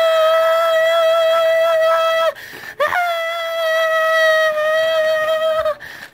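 A high-pitched human voice holds a long, steady, siren-like note. It breaks twice for breath, the pitch dipping at the end of each phrase and swooping back up as it restarts.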